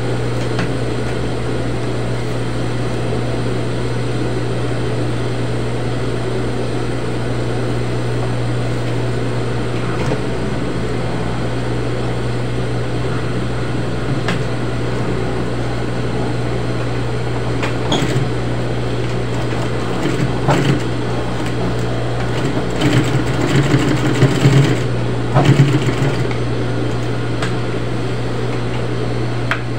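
Juki high-speed lockstitch industrial sewing machine running with a steady low hum, with a few single clicks and a louder, uneven stretch of stitching about two-thirds of the way in.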